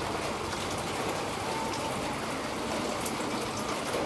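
Steady rain falling, with many small scattered drop hits over an even hiss.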